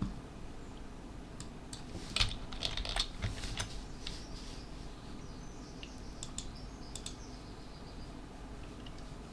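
Computer keyboard typing in short runs of key clicks, most of them in a burst from about a second and a half to four seconds in, and a few more near the seven-second mark.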